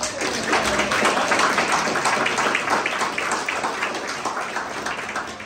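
Audience applauding: a roomful of people clapping.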